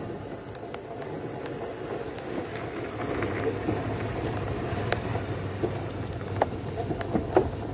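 Riding noise from a moving rickshaw van on a rough village road: a steady rumble with scattered rattles and knocks. A motorcycle engine hums past around the middle.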